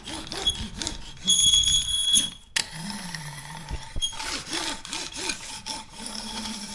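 A hand tool rubbing and scraping back and forth over IsoTherm thermal liner bedded on adhesive, pressing out air pockets. The strokes repeat, some with a high squeak, and there is a sharp click about two and a half seconds in.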